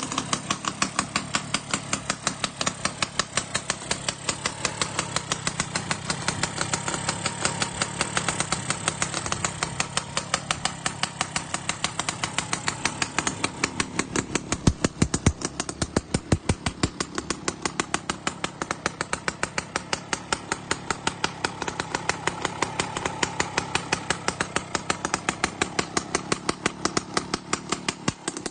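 Kawasaki HD3 motorcycle engine with an RXT cylinder head running at idle, a steady rapid train of even exhaust pops. A few louder pops come about halfway through.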